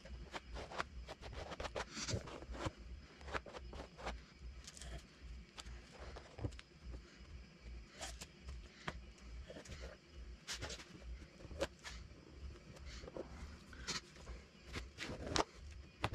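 Plastic spreader scraping and tapping as Bondo body filler is mixed on a board and worked into a crack in a vinyl dash pad: irregular scrapes and clicks.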